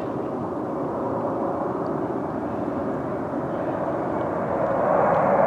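Jet airliner passing low, its engines running as a steady rushing drone with a faint hum, growing louder near the end as it comes closer.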